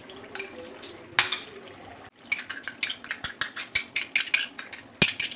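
Metal spoon clinking and scraping against a small glass bowl as cream is spooned out: a few separate clinks, then from about two seconds in a quick run of taps at about five a second, ending with a sharper clink near the end.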